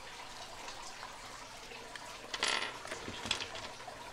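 Faint handling of small lock tools and their plastic cases: a brief rattle about two and a half seconds in, then a few light clicks.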